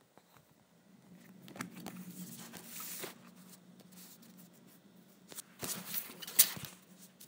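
Thin plastic A4 clear file folders being handled and spread out by hand: rustling and sliding of the plastic sheets, then a run of sharp crackles and taps near the end as they are laid down.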